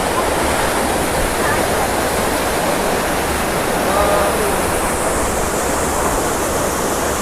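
Waterfall pouring steadily, a loud even rush of falling water.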